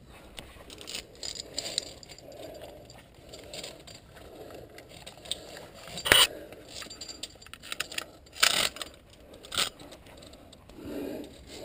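Via ferrata lanyard carabiners clacking and scraping against the steel safety cable and rock as a climber moves along it. There are scattered small clicks, one sharp loud clack about halfway through, and two more a couple of seconds after it.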